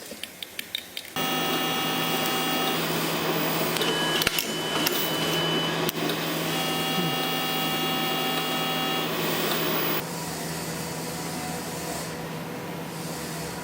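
A few quick clicks, then factory machinery in a saw-blade works starts suddenly about a second in and runs steadily with a hum and a whine that comes and goes, with a few knocks in the middle. It drops a little in level near ten seconds.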